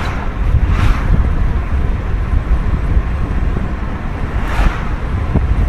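Road vehicle noise: a steady low rumble with wind buffeting the microphone, and brief rushing swells at the start, about a second in, and near the end.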